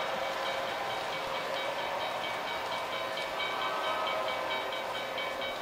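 Model trains running on a layout: a steady whir of the running trains, with a quick, even, high ticking about five times a second.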